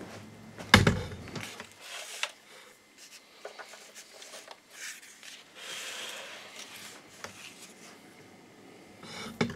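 Handling noise as a power cord is plugged into the back of an open projector: a heavy thump about a second in, then scattered clicks, rustling and knocks, with another knock near the end.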